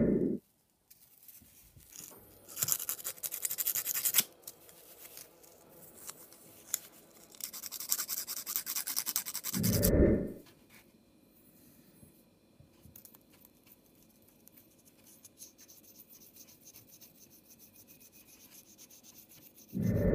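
Scratching and rubbing from hands handling an ignition coil's rubber boot and contact spring, in two bouts of a second or two each. A dull low thump comes about midway and another at the end.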